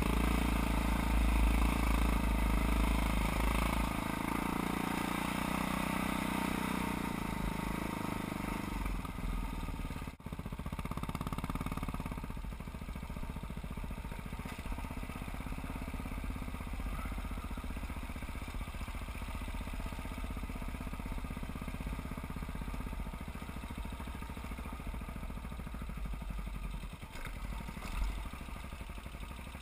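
Single-cylinder four-stroke engine of a KTM 640 enduro dirt bike running under throttle on a rough trail, then easing to a quieter, lower running for most of the rest. A brief drop about ten seconds in and a sharp knock near the end.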